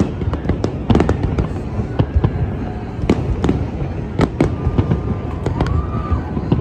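Aerial fireworks display: a rapid, irregular run of loud bangs and crackles over a continuous low rumble of overlapping bursts.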